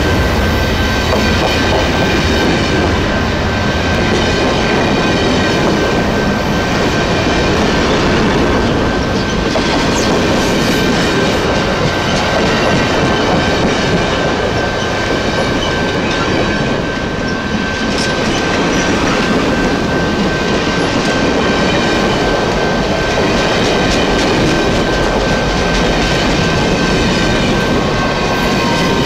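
Amtrak stainless-steel passenger coaches rolling past at close range: a steady loud rumble of wheels on rail with clickety-clack over the joints and a thin high ringing tone held throughout.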